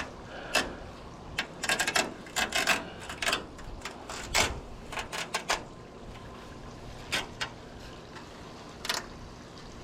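Irregular clicks and rustles of handling, coming thick and fast through the first half, then two more near the end, over a steady outdoor hiss.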